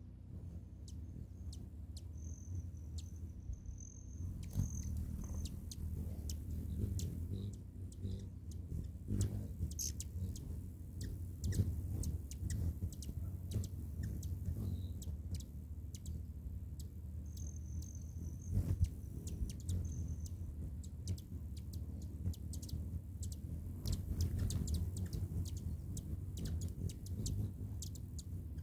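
Several hummingbirds hovering and feeding at a feeder: a low hum of wingbeats with many short, sharp chip calls throughout.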